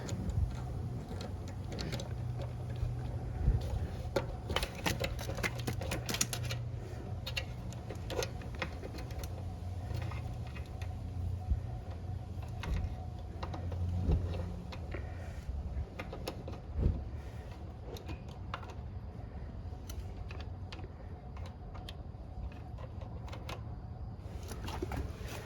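Irregular clicks, taps and small knocks of hands and tools working at an air conditioner's wiring, pulling connectors off terminals, over a steady low hum. The clicks are busiest in the first half.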